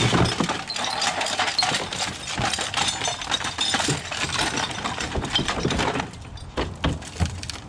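Trash tumbling out of a mesh bag into a plastic wheeled garbage bin: a loud thud at the start, then steady clattering and rattling for about six seconds, ending in a few separate knocks.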